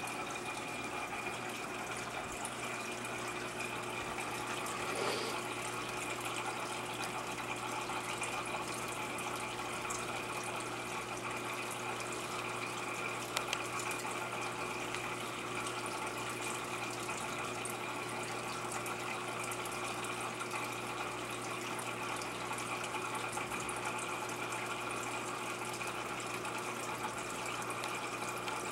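Aquarium filtration running: a steady wash of moving water with a constant electrical pump hum.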